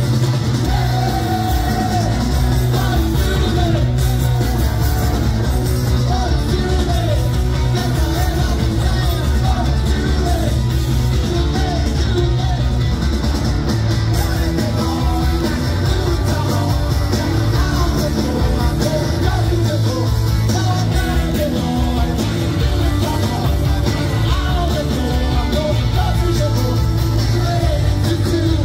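Live garage-rock band playing loud: distorted guitars, heavy bass and drums, with singing over the top, steady and unbroken throughout.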